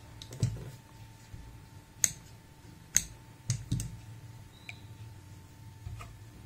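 Scattered sharp clicks and taps, about six in all, from hands folding and pressing dampened fabric and stiff interfacing on a table, over a faint steady hum.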